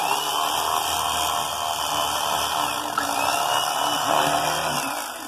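Electric carving knife running with a steady motor buzz while it saws through slices of a roasted rolled pork belly.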